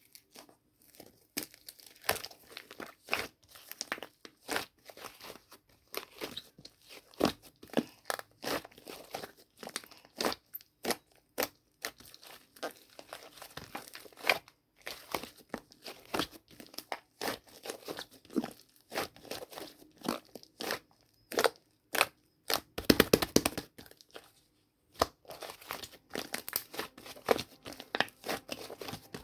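Cheese clay being crushed and broken apart, giving a dense, irregular run of small crackles and crunches, with a louder quick cluster of crackles about three-quarters of the way through.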